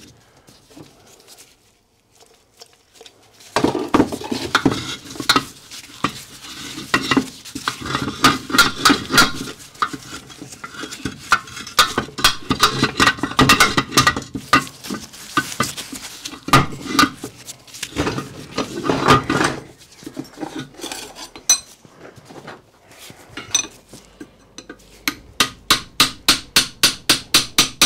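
Steel and cast iron parts of a Stuart steam engine clinking and scraping as the crank and eccentric are worked loose inside the crankcase. Near the end comes a quick run of regular light taps, about six a second.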